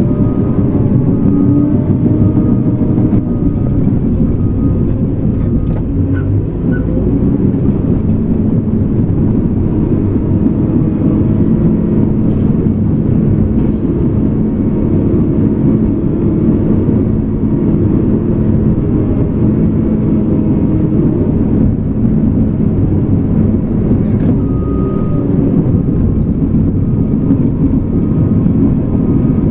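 Caterpillar D5K2 crawler dozer at work, its four-cylinder Cat C4.4 diesel running steadily under load as it pushes dirt.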